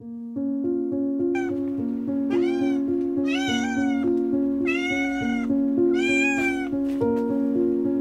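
Domestic cat meowing about five times, roughly one call a second with the pitch bending in each, over background music with steady held notes.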